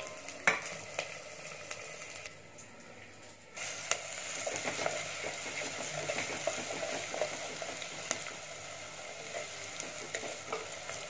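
Sliced onions sizzling in hot oil in a clay pot, stirred with a wooden spatula that scrapes and knocks against the pot. There is a sharp knock about half a second in. The sizzle drops low for about a second, then comes back louder at around three and a half seconds.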